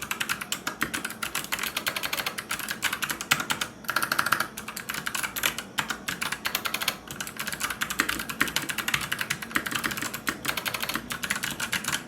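Fast continuous typing on a Tempest Kirin V2 mechanical keyboard with clicky switches and lubricated stabilizers: a rapid stream of sharp key clicks with a few brief pauses, about four, five and a half, seven and eleven seconds in.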